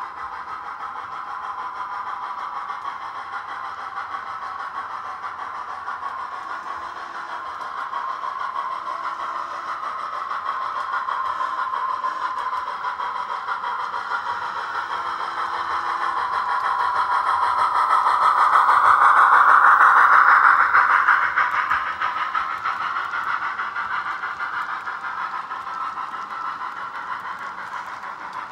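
S scale model train running on the layout's rails: a steady motor and wheel rumble that grows louder as the train approaches, is loudest about two-thirds of the way through as the PRR M1a locomotive passes, then eases off as the reefer cars roll by.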